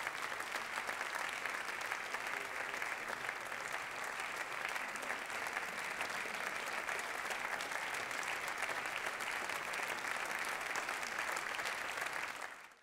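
Audience applauding steadily, the clapping fading out near the end.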